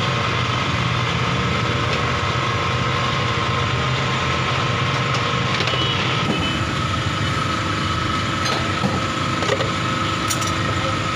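A steady mechanical hum, like a motor or engine running, unchanged throughout, with a few light clicks in the second half.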